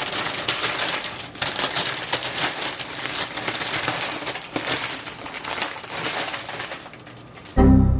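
Dense, dry crackling and rustling as a bouquet of dead, dried-out flowers is handled and pulled apart to be thrown away, with a brief loud thump near the end.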